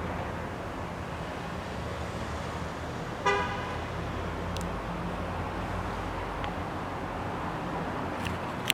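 Steady road traffic noise with a single short car horn toot about three seconds in, and a sharp click near the end.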